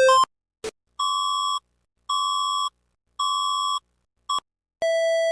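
Emergency-alert electronic beep tones: a fast two-pitch beeping cuts off, then three steady higher beeps sound about a second apart, followed by a short blip. Near the end a lower, buzzier beep begins a new pattern.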